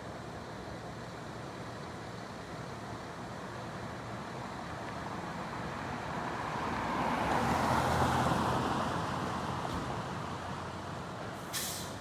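A heavy vehicle drives past, its engine and road noise building to a peak about eight seconds in and then fading. A short, sharp hiss of air comes near the end.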